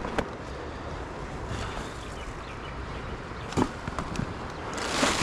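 Handling of the container holding the night's catch as it is opened to look inside: a click just after the start, a knock about three and a half seconds in, and a rustle building near the end, over a steady background hiss.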